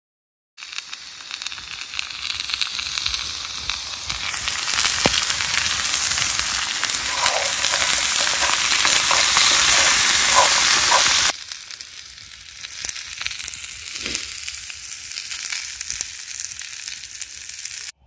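Chopped vegetables sizzling in a cast-iron frying pan over a campfire while being stirred with a wooden spatula, growing louder. About eleven seconds in it cuts abruptly to a quieter hiss with scattered crackles.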